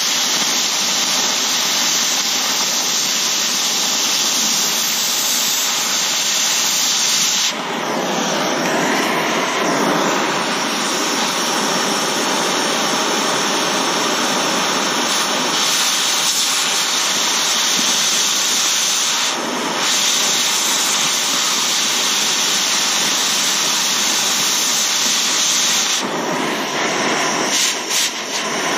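Cutting torch running with a steady roaring hiss while it burns through steel hitch bolts. Its tone shifts about a quarter of the way in and again near the end, with a few short dips just before the end.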